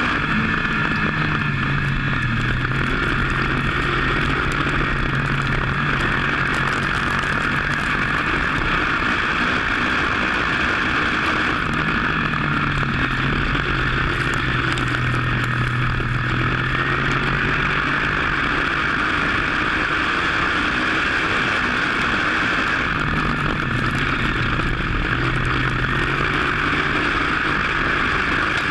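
WISSOTA modified race car's V8 engine heard from inside the car under a steady hiss of wind noise, its note climbing and falling back three times as it laps the dirt oval.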